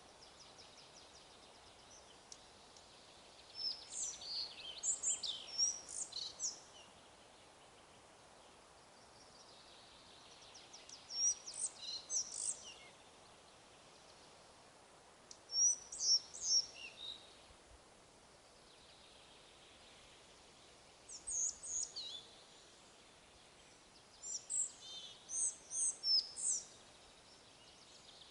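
A songbird singing five short, high, chirpy phrases a few seconds apart, over a steady faint hiss of wind in the forest.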